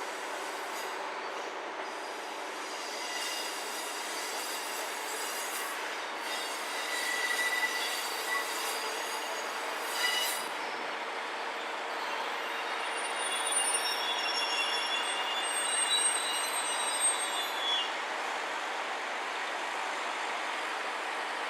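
A train rolling slowly on its rails, the wheels squealing in thin high tones that come and go from a few seconds in until near the end.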